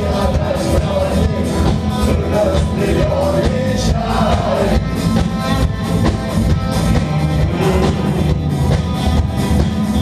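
Rock band playing live at full volume: electric guitars and a drum kit, with a singing voice over them.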